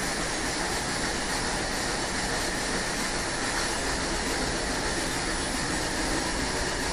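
Automatic bag paging and labeling machine running, a steady mechanical noise from its conveyor and bag feeder as pouches pass under the label applicator.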